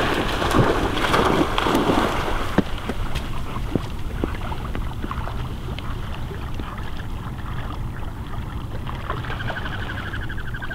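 A retriever dog splashing into the sea and swimming out on a retrieve, loud splashing for the first couple of seconds, then the quieter wash of water around the swimming dog under a low wind rumble. Near the end a faint, rapid trilling call begins.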